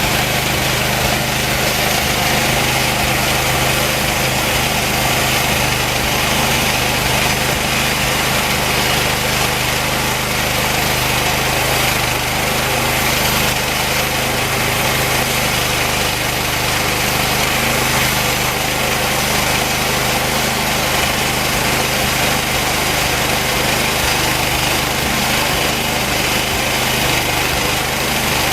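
Homemade band sawmill running steadily under load, its engine humming evenly as the band blade cuts slowly through very hard post oak. The blade is worn after about 40 cuts, which makes the cut slow going.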